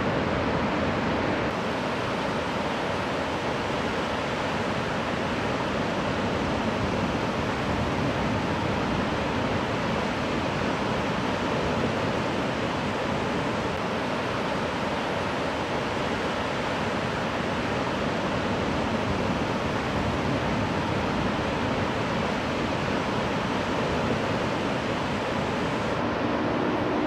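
Breaking ocean surf: a steady, continuous wash of waves.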